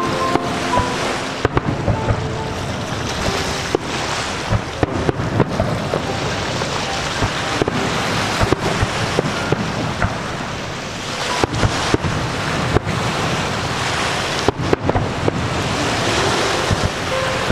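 Aerial fireworks bursting: irregular sharp bangs of exploding shells over a continuous crackling hiss.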